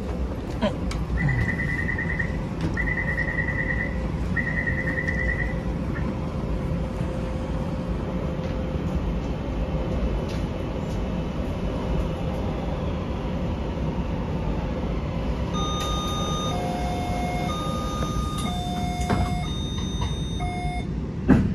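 Taipei Metro C341 train: the door-closing warning sounds as three trilling beeps of about a second each, then the train runs with a steady rumble. Near the end come held electronic tones stepping between pitches, and a sharp knock just before the end.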